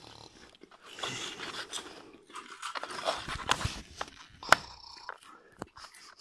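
Irregular crunching, rustling handling noise with several sharp clicks as small plastic toy figures are moved and tapped about on a wooden floor.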